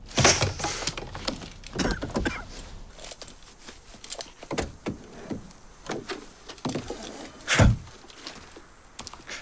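Car door thunks, then a run of short rustles and clicks as a leather shoulder holster is handled, with a heavy thunk about three-quarters of the way through.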